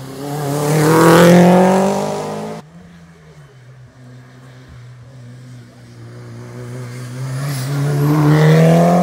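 Two race cars accelerating hard past, one after the other, their engines revving up in rising pitch. The first is loudest about a second in and cuts off suddenly under three seconds in. The second, a Mitsubishi Lancer Evolution with its turbocharged four-cylinder, builds steadily louder toward the end.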